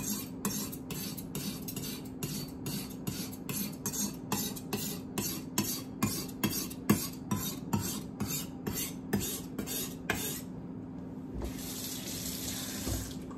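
Kitchen knife blade scraped across a wet diamond whetstone in quick, even pushing strokes, about three a second: the finishing strokes that pull the wire burr off the edge. Near the end, water runs from the kitchen tap for a second or two as the blade is rinsed.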